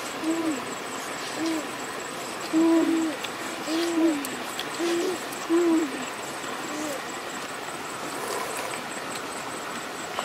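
A bird hooting: a series of about eight short, low hoots at uneven intervals in the first six seconds, over a steady background hiss.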